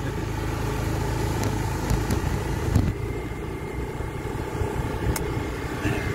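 Automatic scooter being ridden over a sandy track: steady engine and road rumble with a faint constant whine, and a few sharp clicks.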